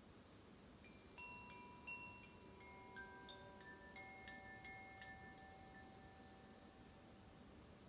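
Healing wind chime rung softly: a run of clear ringing notes at several pitches beginning about a second in, each left to ring on and slowly die away.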